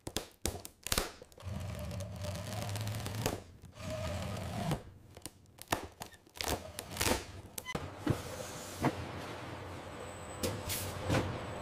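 Box-sealing machine taping a cardboard box: a run of irregular clicks and thunks over a low, steady machine hum.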